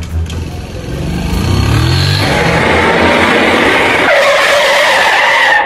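A motor scooter engine revving up, its pitch rising over the first two seconds. From about two seconds in a loud, sustained tyre screech takes over, the sound of a skid before a crash, and it cuts off suddenly.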